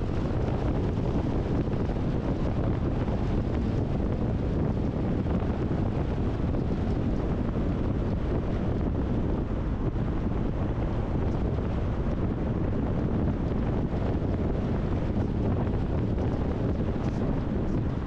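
Steady low rumble of a car driving: road and wind noise, with wind buffeting the camera's microphone.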